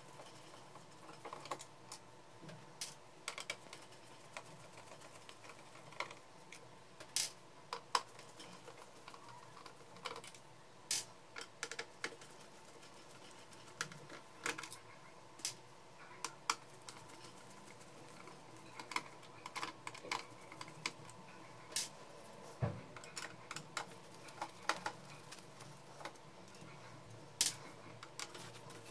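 Irregular sharp clicks and taps of a screwdriver working the screws on the side frame of an HP LaserJet Pro M278-M283 printer, metal and plastic parts clicking as the tip seats and turns.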